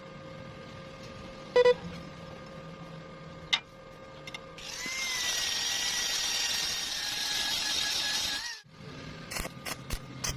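A metalworking tool running for about four seconds as a steady hiss with a faint wavering whine, cutting off suddenly, with single sharp clicks before it and a quick run of clicks after it.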